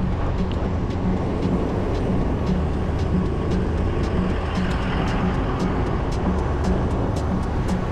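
Steady low noise of a moving bicycle ride on a concrete sidewalk: wind on the microphone and tyre noise, with faint clicks that come more often in the second half.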